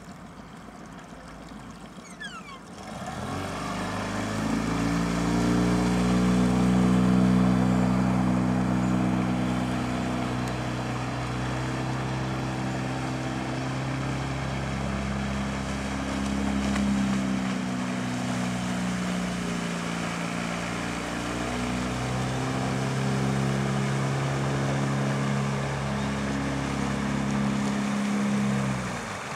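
8 hp Honda four-stroke outboard motor running steadily under way, pushing a small open boat. Its steady drone grows louder about three seconds in, wavers a little in pitch, and stops suddenly near the end.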